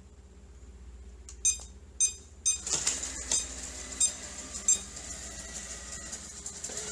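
Robot vacuum beeping three times in quick succession, then its motor and brushes starting to run with a steady whir, with a few more short beeps over it.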